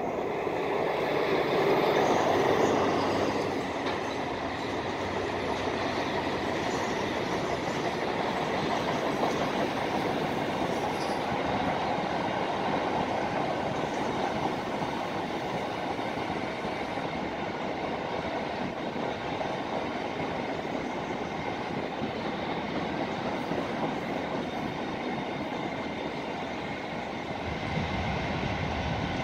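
A long freight train passing close by. The diesel locomotive is loudest about two seconds in as it goes past, then the wagons keep up a steady rolling noise of wheels on rails, with a thin steady whine above it.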